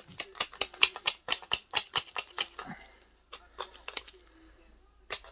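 Rapid, light, irregular tapping on a rusty canal lock windlass, knocking caked rust and dirt out of its socket hole. The taps thin out about three seconds in and start again near the end.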